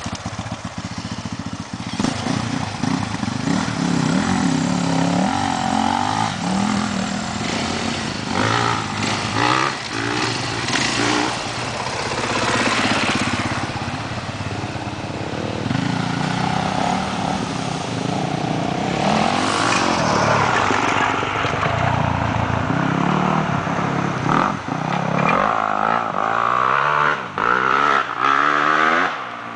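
Dirt bike engine revving up and down over and over, its pitch rising and falling as the throttle is worked.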